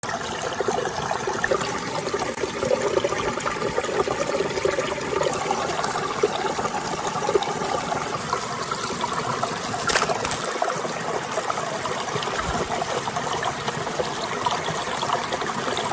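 Shallow running water trickling steadily.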